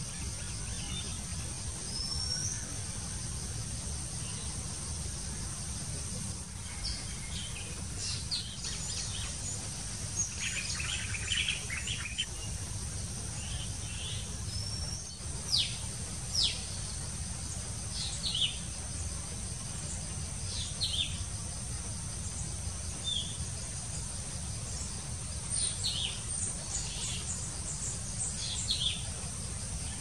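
Small birds calling with short, sharp falling chirps, scattered and more frequent from several seconds in, over a steady high-pitched insect drone and a low rumble.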